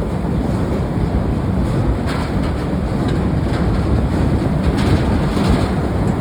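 Steady low roar of forging-shop machinery, with a few faint knocks on top.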